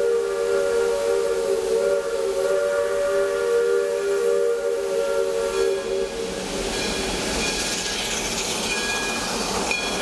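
Steam locomotive whistle sounding one long, steady chord that stops about six seconds in, leaving steam hiss and the running noise of the train.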